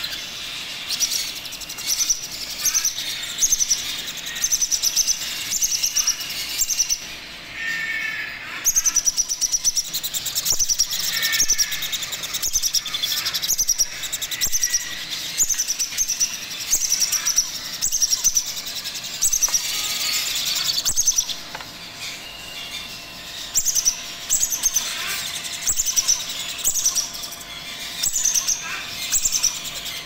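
Baby macaw chicks giving food-begging calls: a steady run of short, high, squeaky cries, about two to three a second, while they are hand-fed with a syringe.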